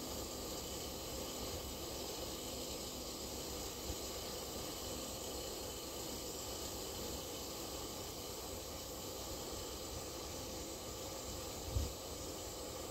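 Steady hiss of compressed air blowing powdered cement through a bulk cement tanker's discharge hose into the silo. A brief low thump sounds near the end.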